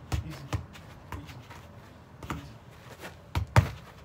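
Feet touching, stopping and tapping a football, with footsteps: a handful of short, sharp thumps at irregular spacing, the two loudest close together near the end.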